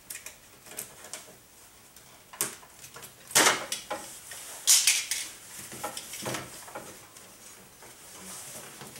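Hand work inside a car door: a utility knife slitting the plastic vapor barrier and the barrier and rods being pulled about. It comes as a few scattered rustles and clicks, the loudest about three and a half and five seconds in.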